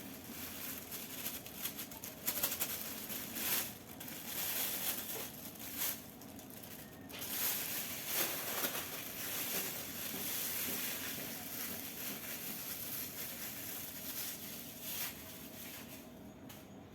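Flour being tipped into orange cake batter and mixed in by hand: irregular rustling and scraping in the bowl throughout.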